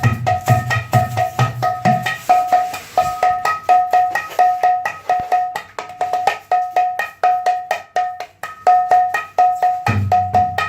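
Mridanga being played in a steady rhythm of several strokes a second, the high strokes ringing with a clear pitch. Deep bass strokes join in at first, drop out after about two seconds, leaving only the ringing high strokes, and come back near the end.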